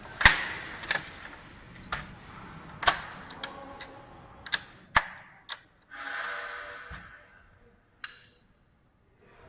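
Sharp clicks and knocks of the locks and latches on Desay X series LED rental display cabinets being worked and snapped shut by hand, about ten in an irregular run. There is a second-long scraping sound about six seconds in.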